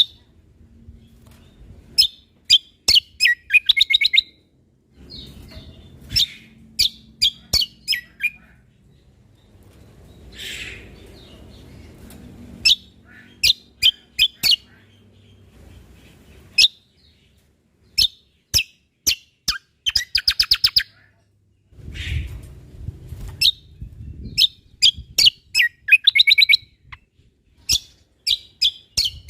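Cucak kombo (kecial kombok) songbird singing: groups of sharp, high chirps and fast trills of rapidly repeated notes, broken by short pauses.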